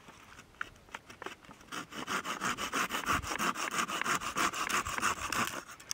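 Folding hand saw cutting through a wooden branch: a few scattered strokes, then quick, regular back-and-forth strokes, several a second, from about two seconds in until just before the end.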